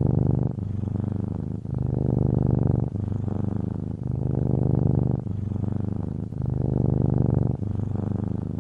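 Domestic cat purring close up: a rapid, steady rumble that swells and eases about once a second as the cat breathes in and out.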